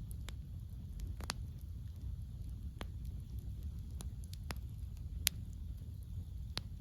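Wood campfire crackling: about ten sharp, irregular pops and snaps, the loudest a little past five seconds in, over a steady low rumble.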